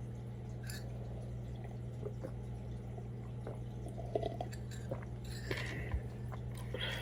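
Room tone: a steady low hum with scattered faint small clicks and ticks, a few more of them near the end.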